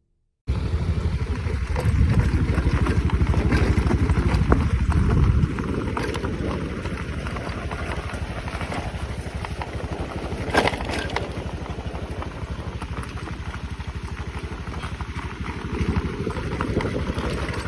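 Small motorcycle engine running with a steady low rumble, louder for the first five seconds or so and then settling a little quieter, with one sharp knock near the middle.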